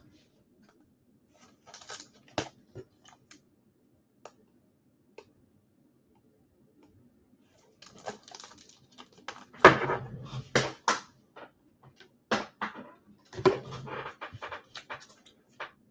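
Football trading cards and their cellophane pack wrappers being handled: bursts of crisp clicks, crinkling and rustling, sparse at first and busiest from about eight seconds in.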